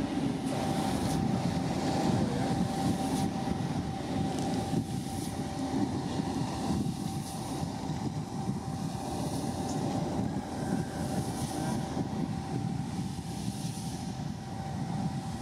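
Low, steady rumbling drone of tugboat and ship engines with a thin constant hum, over wind and water noise.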